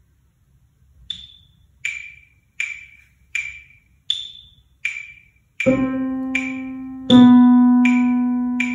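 Metronome app clicking at 80 beats a minute, the first click of every four-beat bar higher-pitched. After a bar of clicks, a piano keyboard comes in with two low sustained notes a second and a half apart, each ringing on and fading under the clicks.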